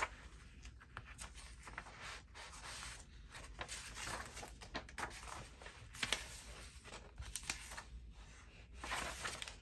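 Paper pieces being handled and sorted by hand: irregular rustling and shuffling with a few sharper ticks.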